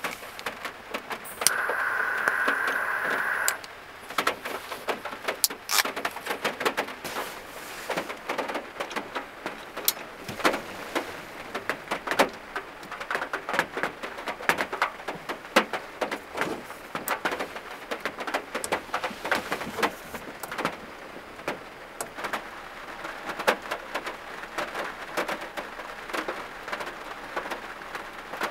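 Heavy rain falling on the roof of a small van, heard from inside the cabin: a dense, uneven run of sharp drop hits over a steady hiss. About a second and a half in, a louder steady hiss rises and lasts about two seconds.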